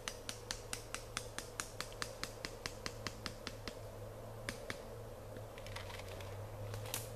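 A rapid, even series of sharp clicks, about five a second, for nearly four seconds, then a few scattered clicks and rustling in dry leaf litter as someone moves about.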